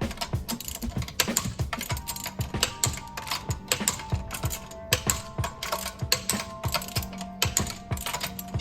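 Ratchet wrench clicking in quick, irregular runs as bolts are worked on the brakes, with faint background music under it.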